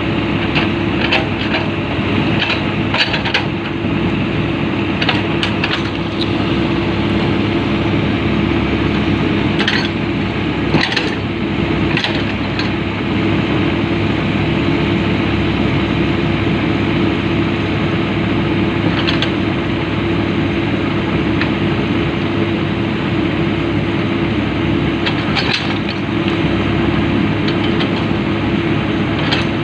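Diesel engine of a Komatsu PC-200 excavator running steadily, with scattered sharp knocks over it, a few in quick succession early on and around ten to twelve seconds in.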